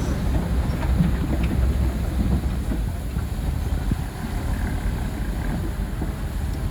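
Diesel engine of heavy earthmoving machinery running with a steady low rumble, with a few light clanks and knocks.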